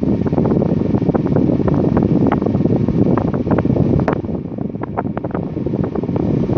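Air from an Arno Turbo Silêncio Maxx 40 cm table fan blowing onto the microphone: loud, rumbling wind buffeting with many small crackles, easing a little after about four seconds.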